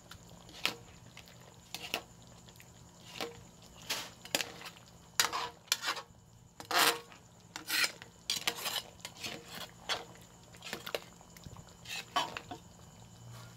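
Metal utensil clinking and scraping against a cooking pot in irregular clatters, as the cooked crab in its reduced sauce is dished out.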